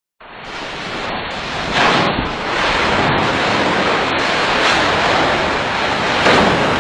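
Loud, steady rushing noise, swelling briefly about two seconds in and again near the end.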